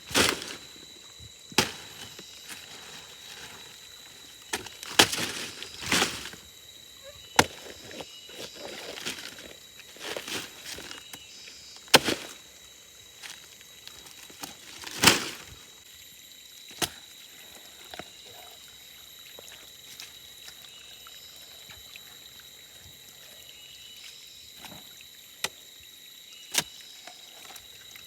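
Irregular sharp knocks and short rustles, about a dozen spread unevenly, over a steady high-pitched drone.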